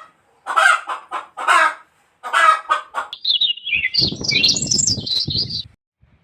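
A hen clucking, about five short clucks roughly half a second apart. From about three seconds in come high, rapid chirps over a low rustling noise, which stop shortly before the end.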